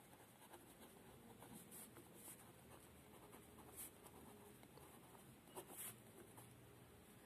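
Faint scratching of a pen writing on paper, in short, irregular strokes.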